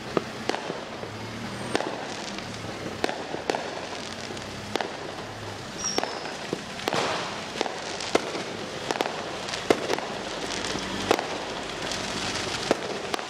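Fireworks and firecrackers going off: irregular sharp bangs and cracks, one or two a second, over a steady hiss of distant crackle.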